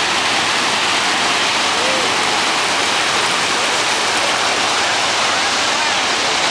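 Ocean surf breaking and washing over the shallows at the water's edge: a steady, loud rush of water noise with no pauses.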